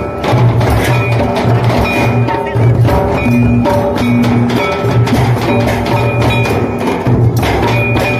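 Santali tumdak (madal) barrel drums beaten by hand in a quick, steady folk rhythm, with a held melodic line sounding in short repeated phrases over the drumming.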